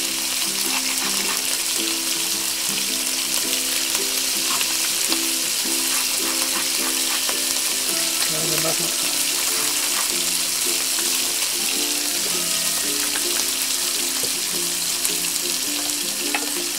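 Gambas sizzling in hot oil in an electric pot: a steady frying hiss. A tune of background music plays underneath.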